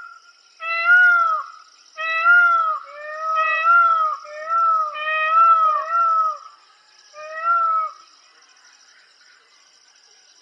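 Peacock giving a series of loud, meow-like wailing calls, about nine short rising-and-falling notes, stopping a couple of seconds before the end.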